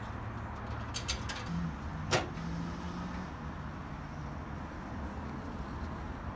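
An aluminium radiator being handled into its mounting bracket: a few light clicks about a second in and one sharper metal knock just after two seconds, over a steady background hum.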